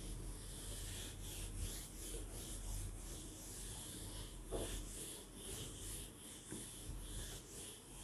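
Whiteboard eraser rubbing across a whiteboard in quick, irregular back-and-forth strokes, a dry hissing scrub, with one louder stroke about halfway through.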